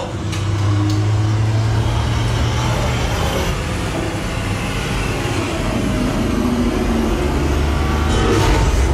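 Action-movie soundtrack played loud through a 7.2.6 Focal 300-series home-theater speaker system, heard in the room: a continuous heavy vehicle-like rumble. A strong low hum sits under it for the first three seconds, and it swells near the end.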